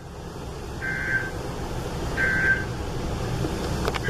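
Emergency Alert System end-of-message code from a NOAA Weather Radio broadcast: two short bursts of digital data warble, about a second and a half apart, over steady radio static and hum, marking the end of the alert. A couple of clicks come near the end.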